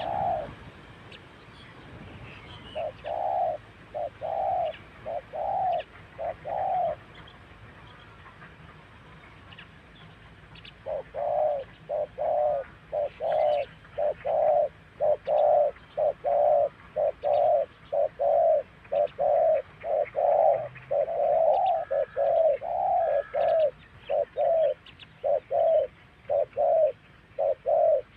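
Spotted dove cooing: a short phrase of about five hooting notes, a pause of several seconds, then a long run of notes at about two a second. Faint chirps of small birds sound behind it.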